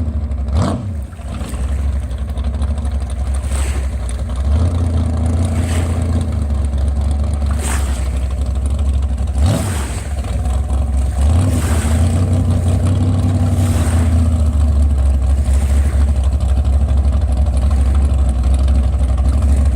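Chevy big-block V8 of a 14-foot Spirit boat running under way at speed. The engine note dips briefly about a second in and again near the middle, then holds steady and a little louder, with short thumps roughly every two seconds.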